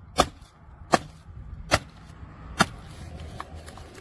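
Camping hatchet chopping into a dry wooden stump: four sharp, regular strikes of the blade biting into the wood, about one a second, all within the first three seconds.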